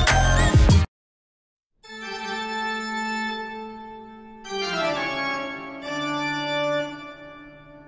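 Music: a loud beat-driven track cuts off about a second in, and after a brief silence organ chords are held, changing twice and fading near the end.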